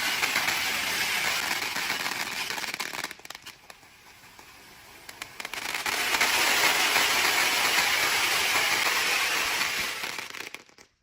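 Several large firework fountains burning at once, a dense steady hiss and crackle of spraying sparks. The sound drops away about three seconds in, comes back about three seconds later, and cuts off suddenly near the end.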